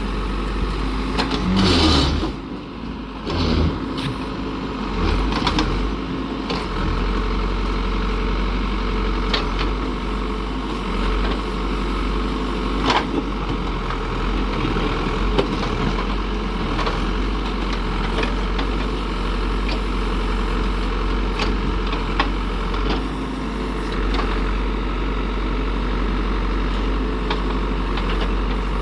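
Heavy construction machine's diesel engine running steadily, with occasional sharp clanks and knocks on top and a louder surge about two seconds in.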